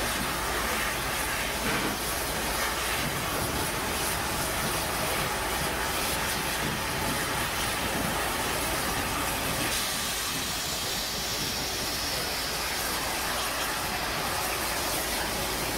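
Czech steam locomotive 477 043 moving slowly with a steady hiss of steam. The hiss turns sharper about ten seconds in.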